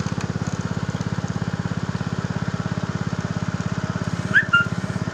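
Small engine running at a steady speed with a rapid, even putter. Two short, high chirps sound near the end.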